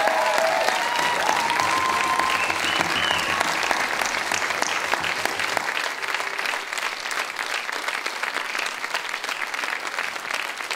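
Theatre audience applauding, a dense steady clapping, with a few voices calling out over it in the first three seconds; the clapping thins a little about six seconds in.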